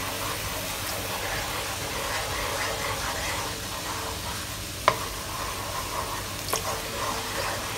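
Sauce bubbling in a nonstick wok, a steady hiss, as a wooden spatula stirs in cornstarch slurry to thicken it. The spatula knocks sharply against the pan twice, about five and six and a half seconds in.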